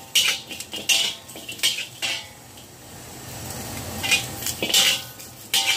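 Metal spatula clanking and scraping against a wok as pieces of goose feet are stirred and turned in the hot, dry pan. A series of sharp metallic strikes with a short ring, about four in the first two seconds, a lull of a couple of seconds, then several more near the end.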